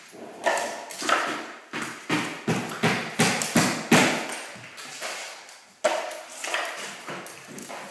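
Steel drywall taping knife clacking and scraping against a metal mud pan and the drywall corner in quick, sharp strokes, two or three a second, with a pause of about a second past the halfway point.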